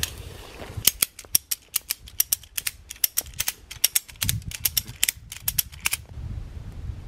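Slackline ratchet tensioner being pumped by hand, its pawl clicking quickly and sharply over the orange webbing as the line is tightened. The clicking starts about a second in and stops about six seconds in.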